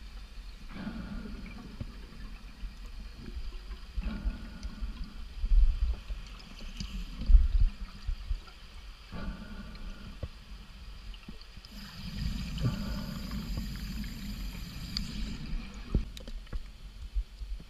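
Underwater sound of a diver's breathing: about four slow breaths, each a two-to-three-second swell of bubbling and hiss, over a constant low rumble of water against the camera housing.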